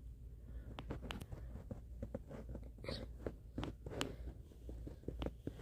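Faint handling noise from a held phone or tablet: soft, irregular clicks and taps over a low steady hum.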